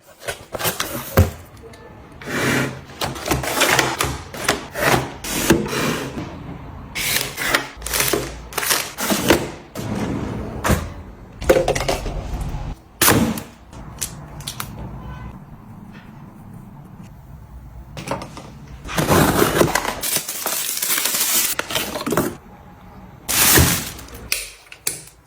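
Household items being handled: a run of clicks, knocks and rustles from containers and packaging being moved and set down, with a longer noisy stretch of rubbing or spraying about 19 to 22 seconds in.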